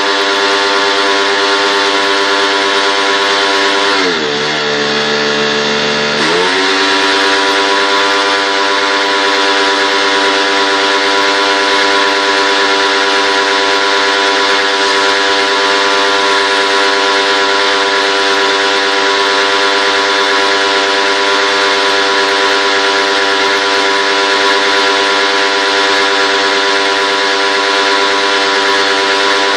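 Electric pressure washer running, its motor whining steadily over the hiss of the water jet. About four seconds in, the motor's pitch sags for a couple of seconds and then climbs back.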